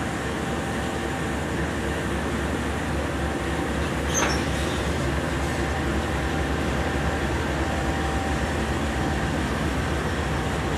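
BNSF diesel locomotives hauling a long intermodal train past, with a steady engine drone and the rumble of wheels on the rails. A brief sharp high-pitched sound cuts through about four seconds in.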